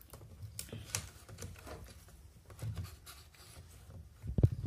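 Light handling noises of hands moving wires and connectors on a TV circuit board: scattered soft clicks and rubbing, with a louder knock near the end.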